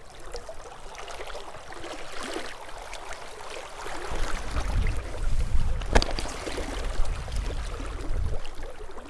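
Steady rush of flowing river water, with a low rumble joining about halfway through and a single sharp click about six seconds in.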